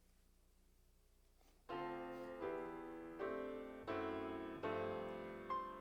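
Near silence for about a second and a half, then a piano starts a slow introduction: six chords, one roughly every three-quarters of a second, each ringing and fading before the next.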